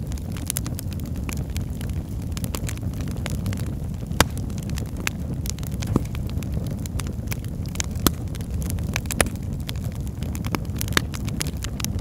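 Wood fire crackling and popping over a steady low rumble, with a few louder pops about 4, 6, 8, 9 and 11 seconds in.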